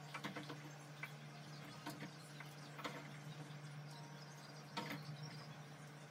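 Light clinks and taps of a metal utensil against a cooking pot, a handful of separate knocks spaced about a second apart, over a steady low hum.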